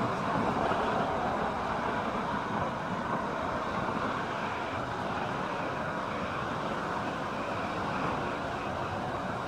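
Steady road traffic noise: cars driving past on a busy multi-lane road, a continuous rush of tyres and engines.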